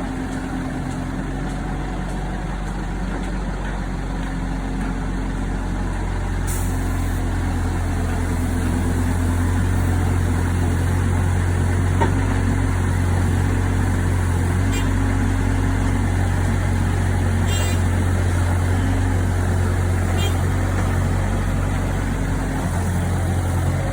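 Heavy diesel engine running steadily, getting louder and working harder a few seconds in as the JCB is moved off the tipper truck.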